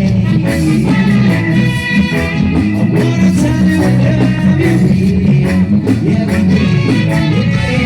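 Live band playing amplified music: electric guitar over bass and drums, with a singing voice.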